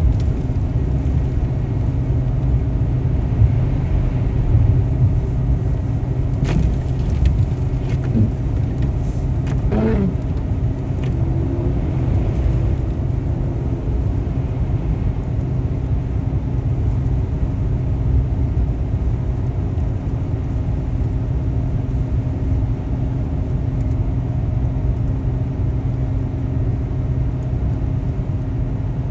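Car on the move, heard from inside the cabin: a steady low rumble of road and engine noise with a faint constant hum.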